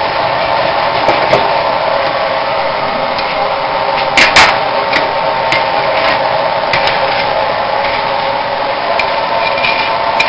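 Forge running with a steady blowing roar and hum. About four seconds in come two sharp metal clanks close together, with a few light clicks and ticks scattered through.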